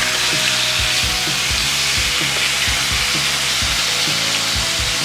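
Sliced meat and sausages frying on a samgyupsal grill pan, a steady sizzle, with tongs stirring and turning the meat.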